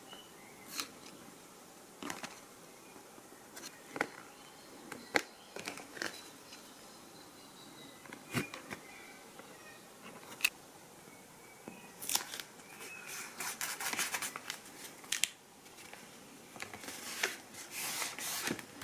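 Quiet workbench handling: scattered small clicks, taps and foam rustles as a servo is hot-glued into a foam wing and its pushrod fitted, with a denser run of clicks about twelve to fifteen seconds in.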